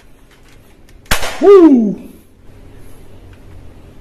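A sharp click from a toy AK-47 rifle being worked, followed at once by a man's loud 'whooo' that falls in pitch over about half a second.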